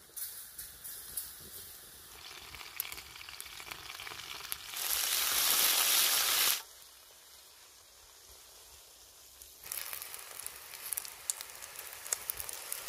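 Flour-coated chicken pieces frying in hot oil in a cast-iron skillet, sizzling and crackling. About five seconds in, a much louder, denser sizzle lasts a couple of seconds and cuts off suddenly; after a quieter stretch the crackling picks up again near the end.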